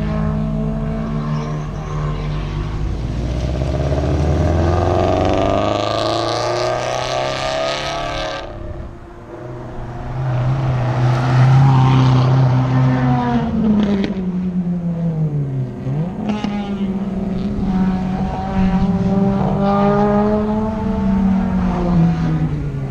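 Cars lapping a race circuit, their engines revving and their pitch rising and falling as they accelerate, brake and pass. A loud pass builds about five seconds in and cuts off sharply after about eight seconds, and the engines are loudest soon after.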